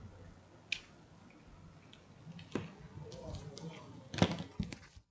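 Handling noise of a plastic handheld radio: a cable plug pushed into its side port, then scattered clicks and knocks as the radio is picked up and turned in the hand, the loudest about four seconds in.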